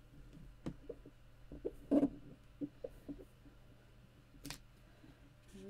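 A few faint clicks and taps as a clear acrylic stamp block is set down and pressed onto card, with a sharper click about four and a half seconds in.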